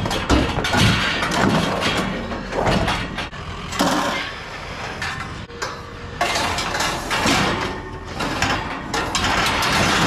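Pieces of scrap steel being handled, knocking, clanking and scraping against each other in a rapid, irregular series.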